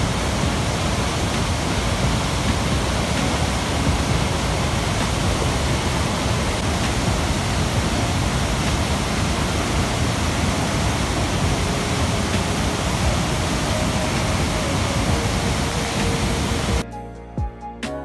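Loud, steady rush of a large waterfall pouring down, cut off abruptly near the end where music takes over.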